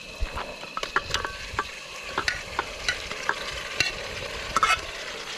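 Chicken curry frying in a pan as it is stirred: a spoon scraping and knocking against the pan at an irregular pace, several times a second, over a steady sizzle.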